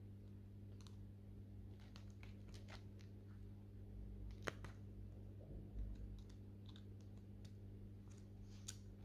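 Faint, scattered clicks and scratches of a needle picking at hardened candle wax, with one sharper click about halfway through and a dull thump soon after, over a steady low hum.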